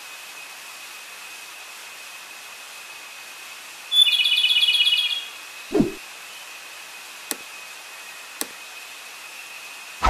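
A flycatcher gives one fast rattling trill of rapidly repeated high notes, lasting just over a second, about four seconds in, over steady hiss and a faint thin whine. A short low thud follows, then two faint clicks.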